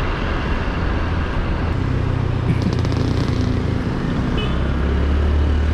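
Motorbike engine running under way with road traffic around it, heard from the back of the moving bike, with steady wind rumble on the microphone.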